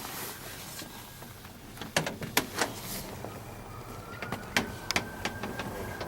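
Several short, sharp clicks and taps at uneven intervals, with a faint background hum that rises and falls in the second half.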